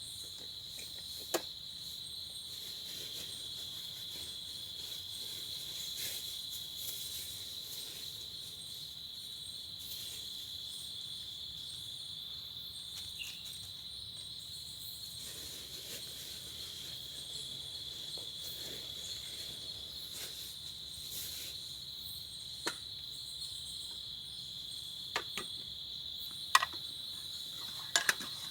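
Insect chorus: a steady, unbroken high-pitched trill. A few sharp clicks or knocks sound over it, one near the start and several close together near the end.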